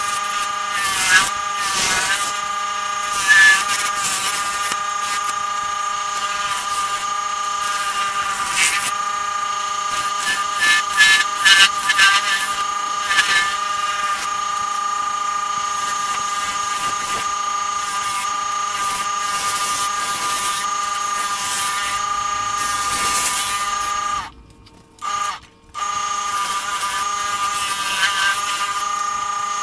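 Wood lathe running with a steady high whine, while a hand-held turning tool cuts the spinning canary wood and bloodwood blank in short scraping bursts, most of them clustered about ten to thirteen seconds in.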